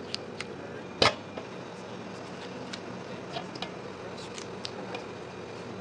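Gloved hands handling wet tomatoes over a stainless steel bowl and working a small metal coring tool: scattered light clicks and taps, with one sharp snap about a second in, over a steady low hum.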